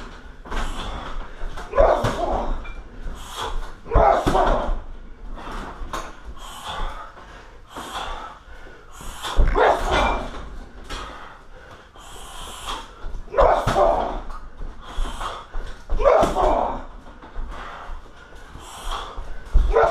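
Shin roundhouse kicks landing on a 60 kg heavy bag hung from a freestanding steel stand, each a heavy thud roughly every two to four seconds, with the kicker's forceful exhale on each strike.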